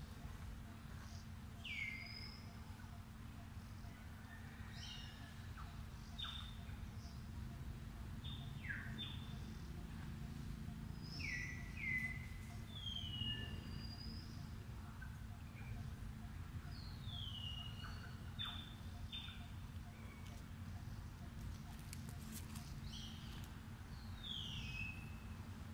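Birds calling with short chirps that slide downward in pitch, scattered irregularly, over a steady low background rumble and a faint steady hum.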